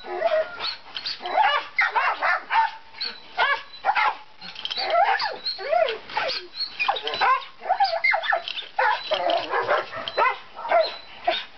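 Dogs barking and yelping excitedly, short high calls following one another in quick succession.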